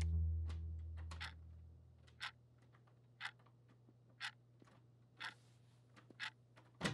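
A few keystrokes on a computer keyboard, then a clock ticking steadily, about once a second, in a hushed room. A low bass note fades out at the start.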